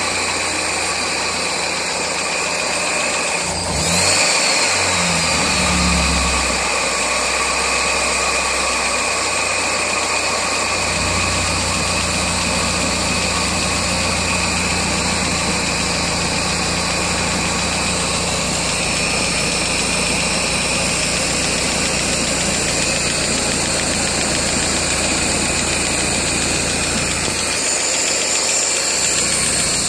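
1999 Mazda Miata's four-cylinder engine idling on all four cylinders, with a tapping tick that persists after setting valve lash to spec and an oil change; the owner finds it loudest above the number 4 spark plug. The engine note changes briefly and gets a little louder about four to six seconds in, then settles back to a steady idle.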